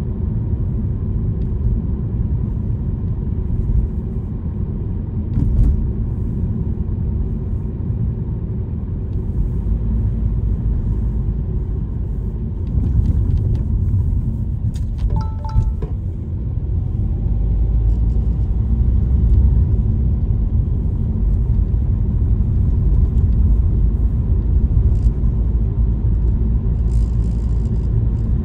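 Steady low rumble of a car on the move, engine and road noise. A few short tones sound briefly about halfway through.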